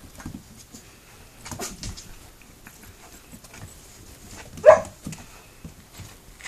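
Puppies scuffling and tugging at a sneaker's laces, with scattered soft scuffs and clicks. About four and a half seconds in, one puppy gives a single short, sharp yelp that drops in pitch.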